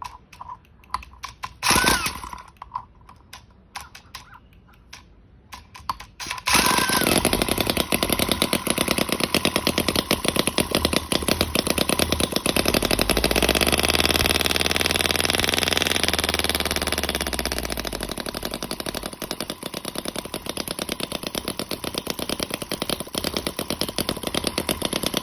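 Miniature Shovelhead V-twin four-stroke gas engine model. After a few clicks and a short burst about two seconds in, it fires up about six and a half seconds in and runs with a fast, even popping beat. It revs up in the middle, then settles back to a slightly quieter run.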